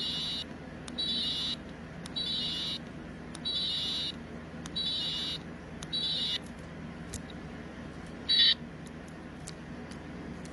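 Toy unicorn keychain's sound chip sounding a run of buzzy electronic beeps, each about half a second long and a little over a second apart, then one louder short beep near the end, with faint clicks in between.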